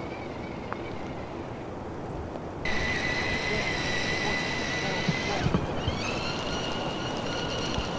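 Tracked remote-controlled robot's electric drive and arm motors running with a steady high whine over rushing noise; the whine jumps higher and louder about two and a half seconds in and glides up again a little past halfway.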